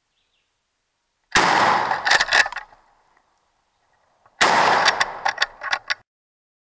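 Two shotgun blasts about three seconds apart, each cracking loud and rolling away in a string of sharp echoes for a second or more.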